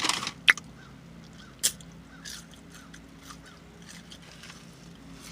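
Mouth sounds of a person eating and drinking: two sharp smacks, about half a second and nearly two seconds in, then quieter small mouth noises over a low steady hum.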